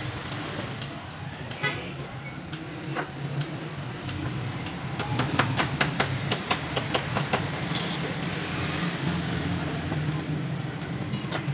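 Steady low hum of road traffic. About halfway through comes a quick run of small sharp clicks as a screwdriver works in an angle grinder's metal motor housing.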